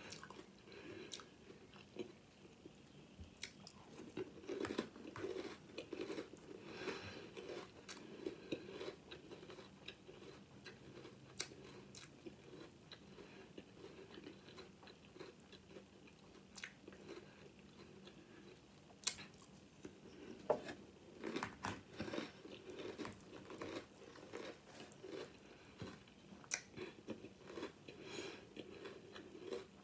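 A person chewing a mouthful of crunchy Sour Patch Kids cereal, with irregular crunches and a few sharper bites in the second half.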